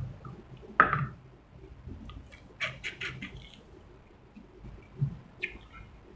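A person eating with her fingers: chewing and wet mouth smacks with short clicks, one sharp one about a second in and a quick run of them near the middle.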